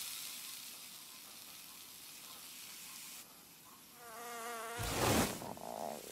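A faint steady hiss of desert air. About four seconds in, a cartoon fly-buzz sound effect starts, a wavering buzz that rises and falls in pitch. It is followed a second later by a short, louder burst of noise.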